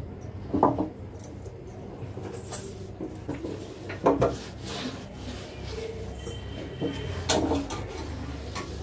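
Hands wiping and scrubbing a stainless-steel gas stove, with rubbing and handling noise and a few sharp knocks against the metal stove body: one about half a second in, one around four seconds in, and one after seven seconds. A steady low hum runs underneath.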